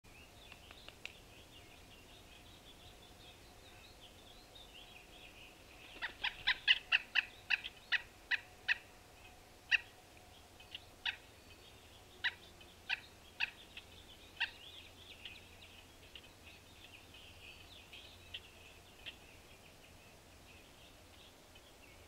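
Birds at a winter feeder: faint, continuous high-pitched chatter, and about six seconds in a run of about fifteen sharp, loud clicks, quick at first and then spacing out.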